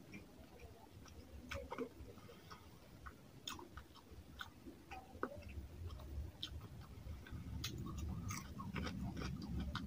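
Close-miked chewing of a mouthful of rice and fish curry, with irregular wet clicks and smacks of the mouth.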